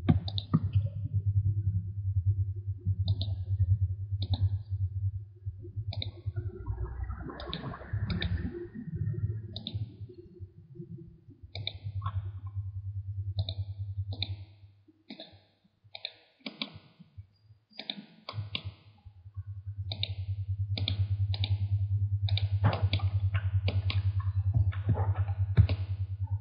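Computer mouse clicking again and again at uneven intervals, the clicks coming faster near the end, over a steady low hum that drops out for a few seconds past the middle.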